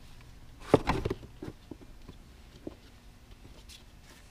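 Handling noises as a new panel air filter and the plastic air filter housing are worked into place: a quick cluster of knocks about a second in, then a few light clicks.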